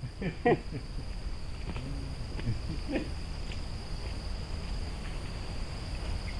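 Steady high-pitched drone of insects in the plantation, over a low rumble, with a few faint voices in the first three seconds.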